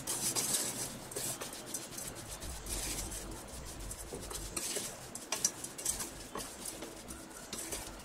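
A wooden spatula stirs and scrapes grated raw mango and sugar around a stainless steel pan, with scattered light knocks against the pan's side, while the sugar slowly melts into the mango.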